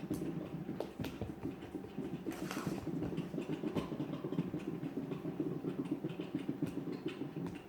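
Cake batter being stirred by hand with a spoon in a mixing bowl: a fast, steady run of wet scraping and slapping strokes.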